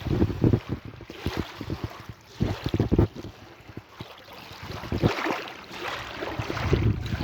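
Sea waves washing in, a hissing surge that builds about five seconds in, with wind buffeting the microphone in low, irregular thumps.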